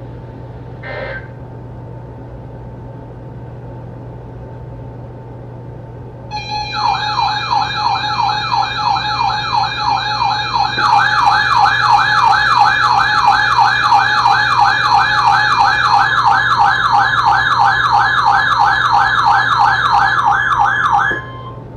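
Electronic sirens yelping: a fast rising-and-falling wail about three times a second starts after a few seconds of low hum. A second siren layer joins about halfway and makes it louder, and both cut off together near the end.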